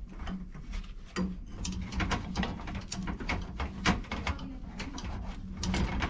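A tubing cutter being turned around a copper water pipe, making a quick run of short clicking, scraping strokes, a few a second, as it cuts through. A steady low hum runs underneath.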